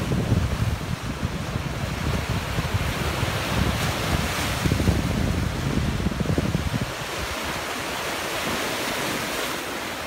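Sea surf washing against a rocky shore, with wind buffeting the microphone in heavy gusts for the first seven seconds or so, then easing.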